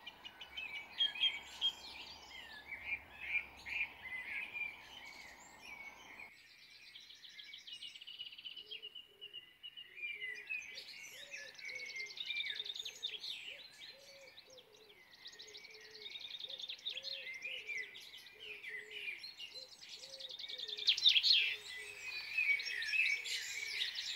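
Several birds singing and chirping, with quick high trills and a low note repeated about twice a second from roughly a third of the way in.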